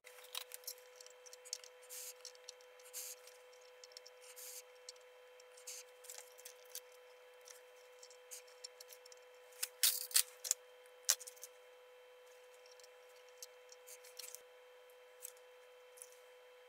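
Faint clicks and snips of electronic components being handled: MOSFET and resistor leads bent and trimmed with small cutters onto jack sockets, with a few sharper snips about ten and eleven seconds in. A faint steady whine sits underneath.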